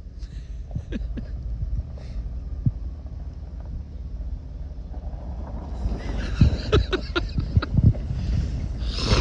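Pickup truck engine running low and slow as the truck comes down a steep rutted hill, growing louder as it nears. From about six seconds in, its suspension and body clunk and knock over the ruts, and a rush of noise comes up near the end as it draws close.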